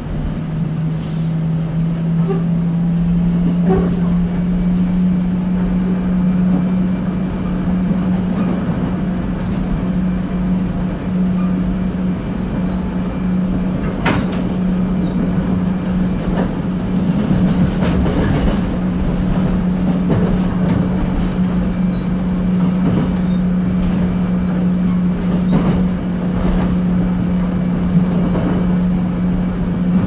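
Electric commuter train running, heard from inside the carriage: rumbling wheel-on-rail noise with a low motor hum that rises slightly in pitch over the first several seconds, as the train gathers speed, then holds steady, with a few sharp clicks.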